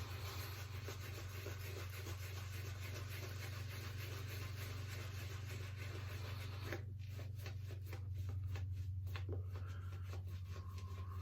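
Wet badger hair shaving brush scrubbing soap lather across the face: a continuous wet rubbing that breaks into separate brush strokes about seven seconds in. The lather is being built up with freshly added water.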